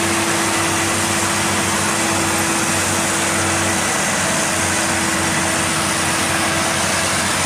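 Heavy logging truck's diesel engine running steadily under a load of logs, a constant low hum with heavy mechanical noise.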